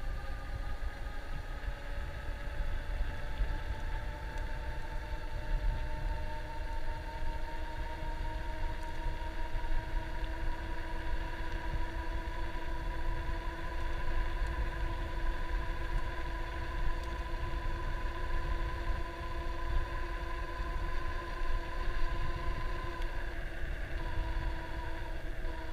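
Electric bike motor whining steadily, its pitch rising slightly over the first few seconds, over a constant low rumble of wind on the microphone.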